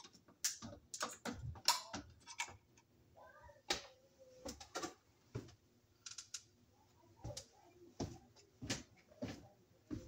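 Irregular light clicks and knocks, about a dozen spread over several seconds, as a fire-alarm bell's back plate and parts are handled.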